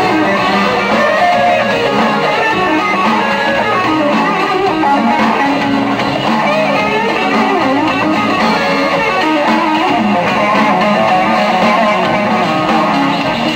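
Live jazz-rock band playing: an electric guitar plays lead lines over Hammond organ, electric bass and drums.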